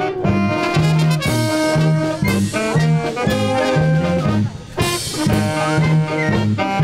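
Brass band playing a swing-style tune: trumpets and trombones over a bass line stepping between two low notes on a steady beat.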